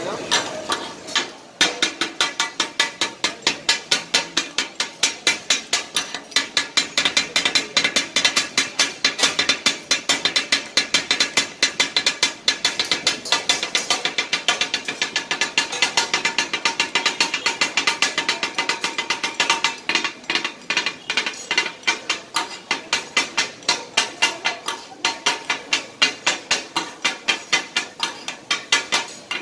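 Kata-kat chopping: two metal spatula blades rapidly striking a large flat metal griddle as the offal is cut up. A fast, even metallic clatter of about four or five strikes a second starts about two seconds in.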